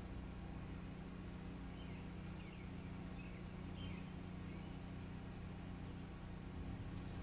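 Steady low electrical hum of equipment running during 50 kW DC fast charging of a Spark EV, with a few faint high chirps about two to four seconds in.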